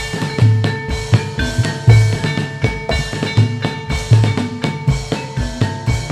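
Jathilan dance accompaniment music: a busy pattern of drum strikes, deep booming hits among sharper ones, over ringing held notes.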